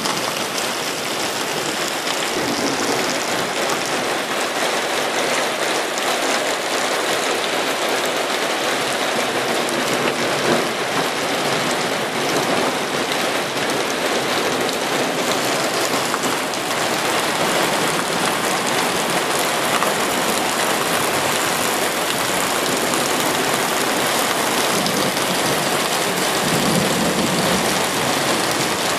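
Heavy thunderstorm rain pouring down, a loud, steady, even hiss.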